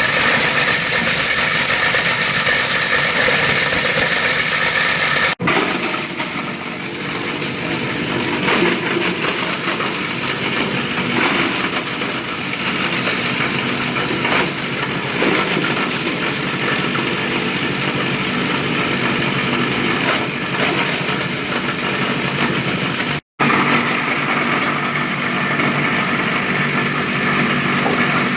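Small plastic-waste shredder running steadily, its motor and cutting blades making a loud, even mechanical noise. The sound cuts out for an instant twice, about five seconds in and again near twenty-three seconds.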